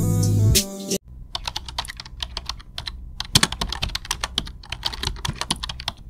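Keyboard typing sound effect: a quick, irregular run of key clicks that goes with text typing out on screen. It follows a snatch of music that stops about a second in.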